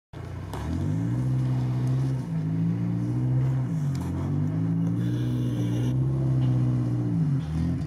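Chevrolet Niva's engine revving under load as the SUV climbs a steep off-road slope. The pitch rises and falls repeatedly as the throttle is worked, and drops near the end.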